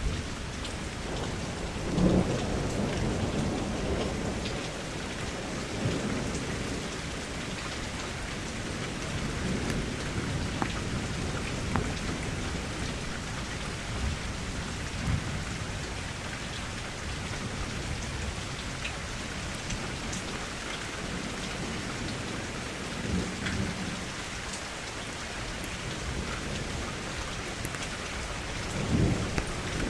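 Steady rain falling on a window, with several low rumbles swelling up through it, the loudest about two seconds in and near the end.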